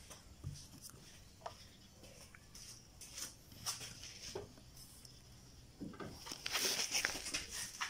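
Faint handling sounds of a plastic brake fluid bottle on a concrete floor: scattered light clicks and knocks, with a longer scuffing stretch near the end.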